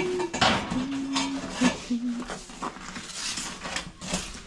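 An animal whining in three short calls, each held on one low, level pitch, with scattered knocks and clatter of objects being moved.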